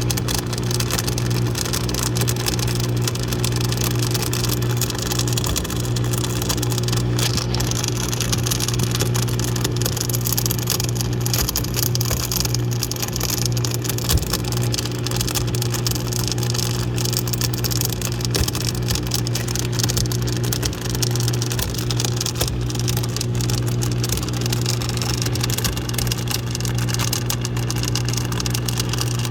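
Dishwasher motor running with a steady grinding noise, a deep hum with several steady higher tones over it. The owner suspects something is stuck in the motor.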